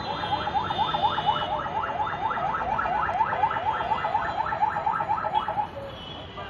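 An electronic alarm sounding a rapid run of rising chirps, about four to five a second, that stops near the end, over street traffic noise.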